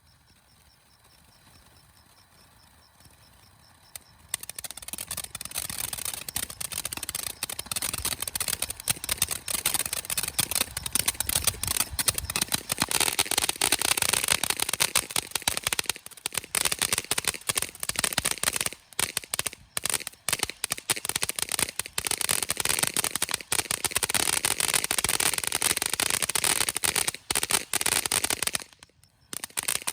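Black Cat 'Little Big Show' firework fountain crackling: it starts suddenly about four seconds in as a loud, dense hiss full of rapid crackles that keeps going, with a brief gap near the end.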